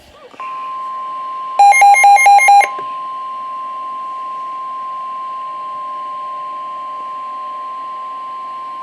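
NOAA Weather Radio 1050 Hz warning alert tone: one steady electronic tone, the signal that a warning message is about to be broadcast. About a second and a half in, the Midland WR120B weather radio's own alarm adds a louder burst of rapid beeps lasting about a second.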